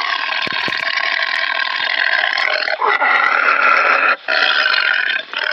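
Tiger vocalizing: a long, rough growling call, then shorter ones with brief breaks between them.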